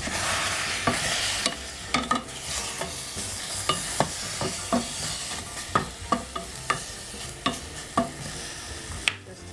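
Wooden slotted spatula stirring apple slices in a stainless steel saucepan, knocking irregularly against the pot's side and bottom. A hiss from the simmering sugar-and-honey water is loudest in the first second or so.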